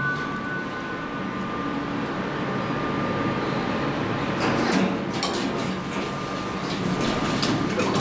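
A 1975 MAN high-speed elevator car travelling down at speed. It makes a steady running noise with a faint, thin whine, and from about halfway a series of sharp clicks and rattles.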